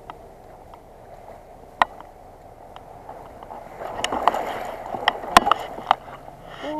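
Water splashing and sloshing right beside a float tube, with scattered sharp clicks and knocks. The splashing grows louder about four seconds in.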